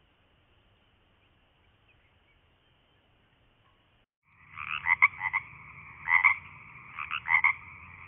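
Near silence for about four seconds, then a frog calling: a steady call with three loud bouts of quick double croaks about a second apart.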